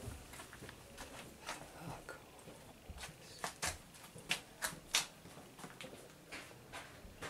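Footsteps and light knocks: scattered irregular taps, with a cluster of sharper ones between about three and a half and five seconds in.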